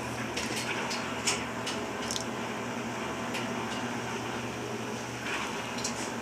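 Whirlpool 15 kg washing machine running with a steady hum and scattered light clicks and knocks; the owner blames the noise on its bearings.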